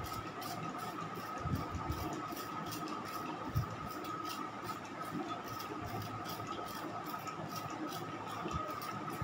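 Trigger spray bottle squeezed over and over to soak a cake sponge, giving a quick run of short hisses several times a second, with a few soft knocks.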